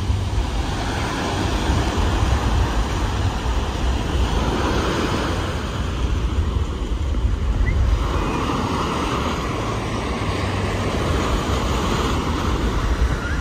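Ocean surf breaking and washing up the beach, a steady rush that swells twice, about four seconds in and again from about eight seconds. Wind rumbles on the microphone throughout.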